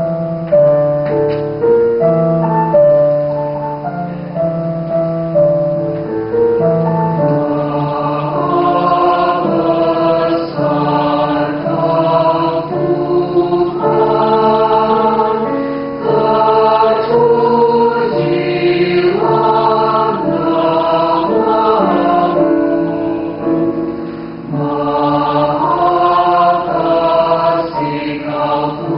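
Mixed choir of men and women singing together in several parts, held notes moving in chords. The sound is thinner at the start and grows fuller about seven seconds in.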